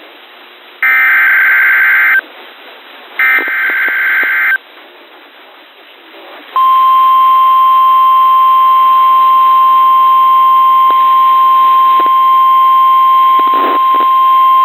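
Emergency Alert System SAME header on NOAA Weather Radio: the end of one short burst of warbling digital data tones and two more bursts, then about two seconds later the 1050 Hz warning alarm tone starts and holds steady. The header and alert tone mark a new warning about to be broadcast.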